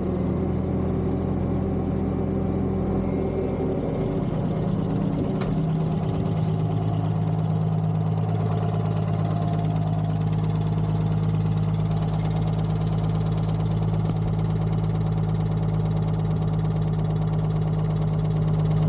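Detroit Diesel 6-71 two-stroke inline-six in a 1978 Peterbilt cabover truck running steadily, its pitch settling a little lower about five seconds in. A single sharp click comes soon after.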